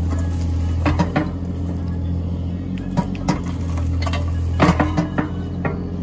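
Bobcat E35 compact excavator's diesel engine running steadily while the steel bucket scrapes and digs through dirt and brush. Several sharp metallic clanks come from the bucket and its linkage.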